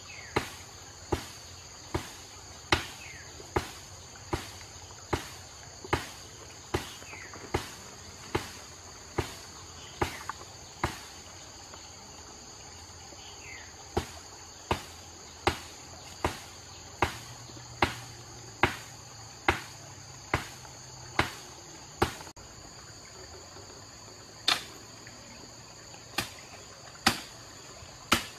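Sharp knocks about once a second, a tool digging into an earth bank, with pauses about eleven seconds in and again after twenty-two. A steady high chorus of crickets runs underneath.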